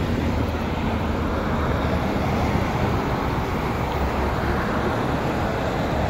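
Steady street traffic noise: a continuous low hum of vehicles on the road.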